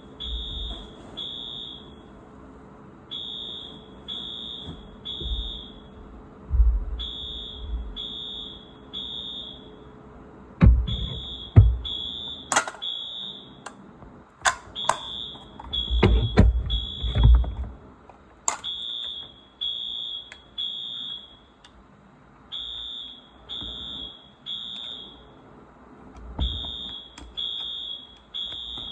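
Wheelock fire alarm tone sounder giving a high-pitched beep three times, then a pause, repeating about every four seconds: the temporal-three evacuation pattern, set off by a smoke detector. Several knocks and thumps come in between, the loudest about a third of the way in and again just past halfway.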